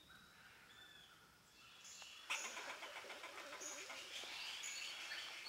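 Faint woodland background with a few short bird chirps. About two seconds in, it gives way to a louder crackly, scratchy sound with a short high buzz repeating through it.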